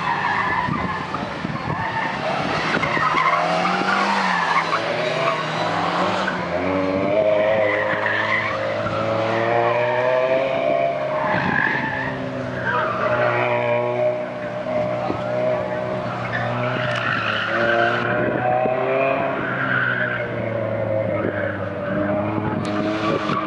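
Volkswagen Scirocco autocross car's engine revving hard, its pitch repeatedly climbing and dropping as it is driven through a cone course, with tires squealing through the turns.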